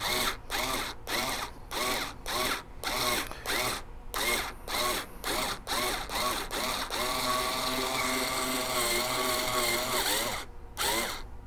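Drill driver spinning an RCBS three-way cutter on the neck of a 7.62x39 brass case, trimming the inside and outside of the neck at once. The trigger is pulsed in short bursts, about two a second, each spinning up and down, then the drill runs steadily for about three seconds and stops.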